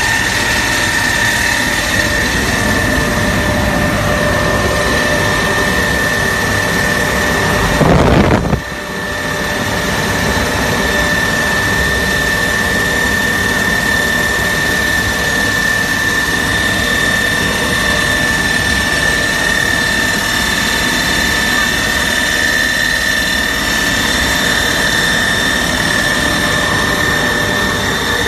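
Rubber powder grinding mill running under test: a loud, steady machine noise with a constant high whine. About eight seconds in there is a brief louder surge, then a short dip before it settles back to the same steady running.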